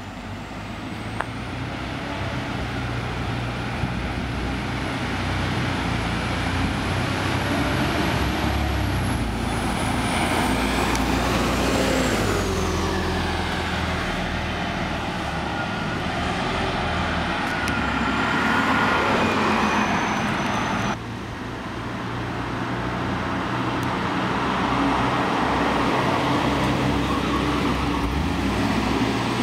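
Neoplan AN460 articulated city bus with a Detroit Diesel Series 50 engine and Allison B500R transmission driving past, its diesel drone swelling and a whine rising in pitch as it pulls away. After a sudden cut about two-thirds of the way in, the diesel drone of an approaching bus and road traffic are heard.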